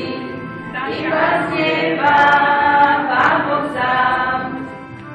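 A group of people singing a song together without accompaniment, in held notes, phrase by phrase with short breaks between.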